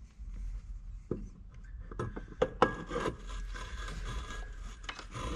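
Metal knocks and clunks as a primary clutch is set onto the crankshaft taper, the loudest about two and a half seconds in, then a continuous gritty scraping as the clutch turns against valve lapping compound to lap the two tapers together.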